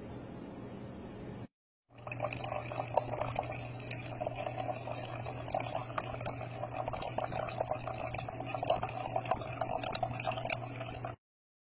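Hot home-made herbal decoction poured through a strainer into a jar: a steady trickling splash with a ringing note from the filling jar, starting about two seconds in and stopping abruptly near the end. Before it there is a steady low hum.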